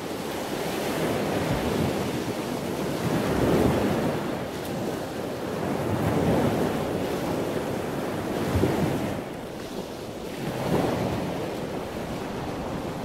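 Sea waves breaking and washing over a rocky shore, the surf swelling and ebbing every two to three seconds.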